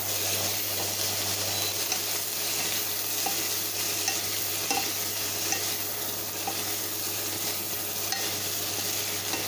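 Green beans, carrots and onions sizzling steadily in a hot oiled pan as a wooden spatula stirs and tosses them, with a few light taps of the spatula against the pan.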